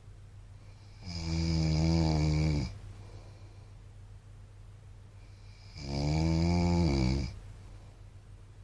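A man snoring in his sleep: two loud, drawn-out snores about five seconds apart, each lasting about a second and a half, over a steady low hum.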